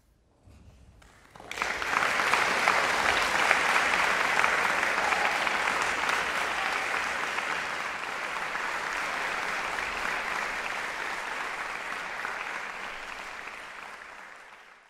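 Concert audience applauding: a few first claps, then the full applause breaks out suddenly about a second and a half in, holds steady and gradually tapers off near the end.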